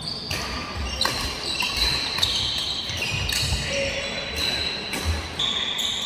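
Badminton doubles rally: sharp racket-on-shuttlecock hits about once a second, with shoes squeaking on the wooden court floor between shots.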